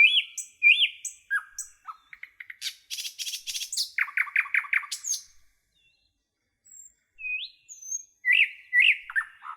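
Songbirds chirping: a string of short, high, upward-hooked chirps and quick notes, with a fast run of about five repeated notes near the middle, a pause of about a second, then more chirps.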